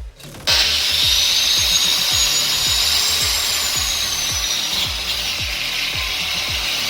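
Angle grinder with a wire brush running against metal, scrubbing old sealant off gearbox housing surfaces. It starts abruptly about half a second in, and its high whine drifts up and back down as the load on the brush changes.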